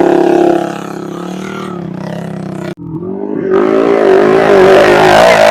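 Small motorcycle engine running under load, with a clean break about two and a half seconds in. After the break an engine revs louder, its pitch rising and falling.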